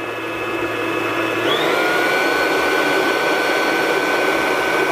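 Kenwood stand mixer running, its whisk beating cream, with a steady motor whine. About a second and a half in it is switched to a higher speed: the whine jumps up in pitch, grows louder and then holds steady.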